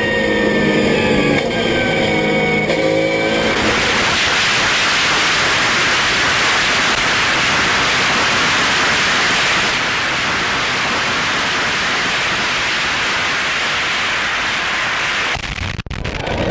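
A Porsche race car's flat-six engine heard inside the cabin, its note falling as the revs drop, for the first three seconds or so. Then a steady, loud rush of wind and road noise on a camera mounted on the car's nose takes over, until it cuts off suddenly near the end.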